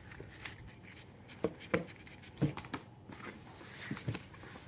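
Paper envelope being handled and opened, a card slid out of it: soft paper rustling with a few light taps and clicks.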